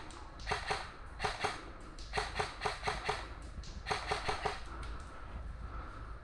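Airsoft rifle firing four short bursts of rapid shots, sharp clacks about five a second, over the first four and a half seconds, then stopping.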